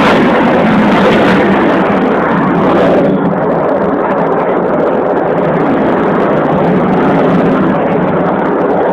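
Fighter jet engines flying overhead: a loud, steady rush of jet noise whose high hiss drops away about three seconds in.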